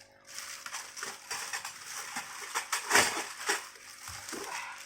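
Small glass oil bottles knocking and clinking together as they are handled, a string of short clicks with the loudest knocks about three seconds in.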